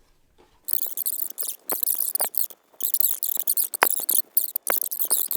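Plastic packaging crinkling and rustling in choppy bursts as it is handled, with a few sharp clicks.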